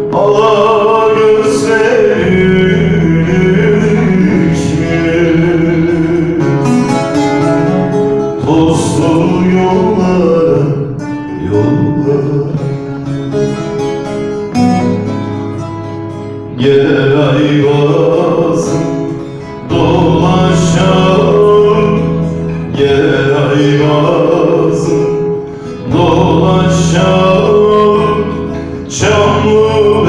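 A man singing a Turkish folk song into a microphone, accompanying himself on a plucked long-necked saz (bağlama), in phrases that break off every few seconds.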